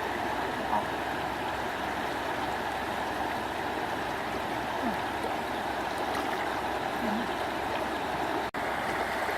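Steady rushing of flowing water, with a few faint small splashes. The sound cuts out for an instant near the end.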